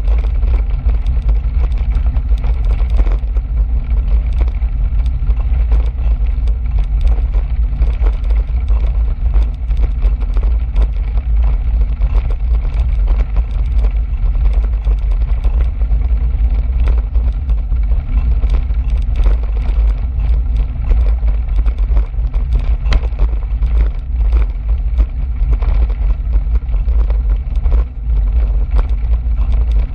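Bicycle ride on a gravel trail heard through the camera's microphone: a heavy, steady wind-and-road rumble, with tyre crunch and many small clicks and rattles from the bumps.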